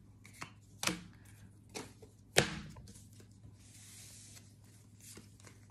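Pokémon trading cards being handled and sorted by hand: a few sharp clicks and snaps, the loudest about two and a half seconds in, then a soft sliding rustle.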